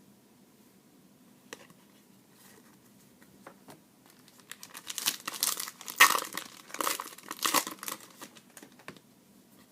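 Foil wrapper of a trading-card pack being torn open and crinkled: a few scattered ticks, then a dense run of crackling for about four seconds in the second half.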